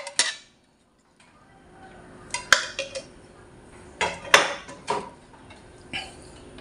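A metal utensil scraping and knocking against a metal frying pan as the last of the sauce is scraped out. After a short gap come several sharp metal clinks of kitchenware.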